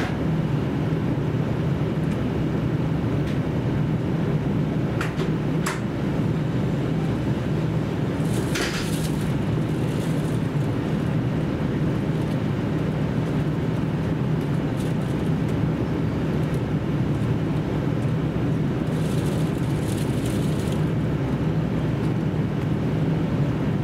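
Inside a JR Central KiHa 75 diesel railcar under way: a steady drone of the diesel engine with wheel and rail noise, and a few short hisses about five, nine and twenty seconds in.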